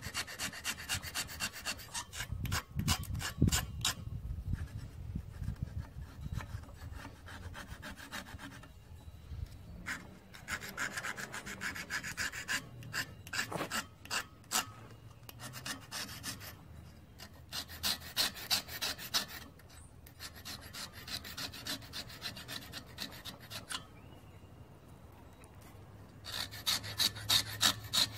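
Hand-held carbide scraper blade scraping rust off the steel crankshaft of an International Type M hit-and-miss engine, in runs of quick back-and-forth strokes with short pauses between them.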